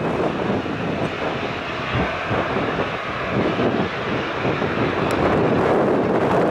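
Airliner engines running: a steady rushing jet noise.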